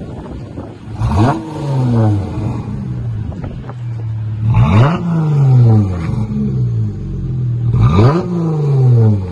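Exhaust of a 2021 Dodge Challenger SXT's 3.6-litre V6, running with the rear mufflers deleted and single-chamber V-tube mid mufflers, idling and revved three times. Each rev rises sharply and falls back to a steady idle.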